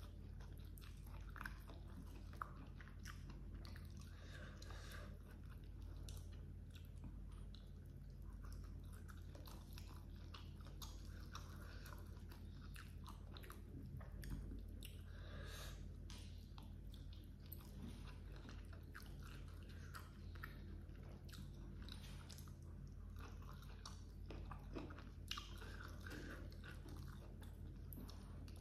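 A person chewing mouthfuls of hand-eaten grilled rice with baby squid and petai close to the microphone, with many small mouth clicks. A steady low hum runs underneath.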